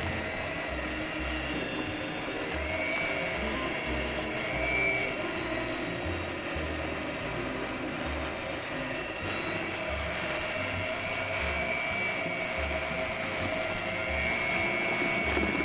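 Electric hand mixer running steadily on low speed, its beaters whirring through thin chocolate cake batter, with a whine that wavers slightly in pitch.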